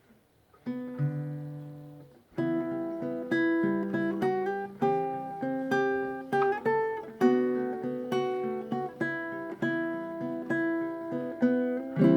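Kala KA-ASAC-B all-solid acacia baritone ukulele being played. A chord strummed about a second in is left to ring and fade. Then a tune of plucked notes and chords follows.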